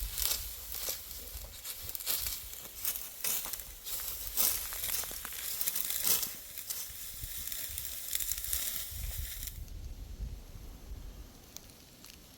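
Dry wheat stalks crackling and rustling in a dense, irregular run of sharp crunches as they are cut and handled. It thins out near the end.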